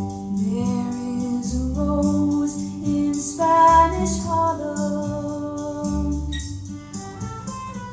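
Recorded music played through homemade four-way hi-fi loudspeakers and picked up by a phone's microphone: a steady bass line under sustained pitched melody notes, with light percussion ticking regularly.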